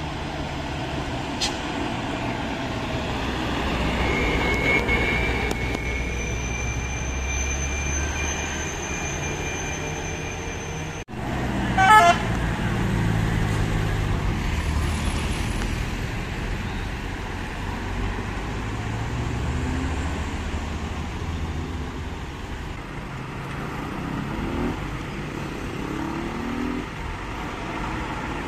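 Decorated mountain minibuses and other traffic passing close by, their engines accelerating hard. A horn sounds steadily for several seconds early on, and an engine note rises near the end.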